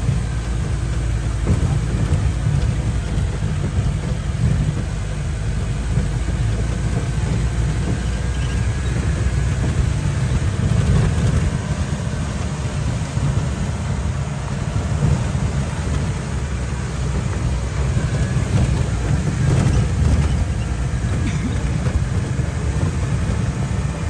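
Steady engine and cabin rumble of an old Mahindra 4x4 jeep, heard from inside while it drives along a rough dirt track.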